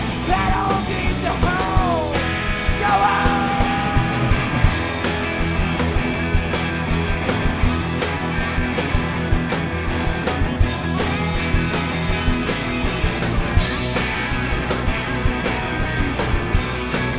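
Live cowpunk rock band playing, with a steady drum beat under dense, loud guitar-driven music; a few sliding notes sound in the first few seconds.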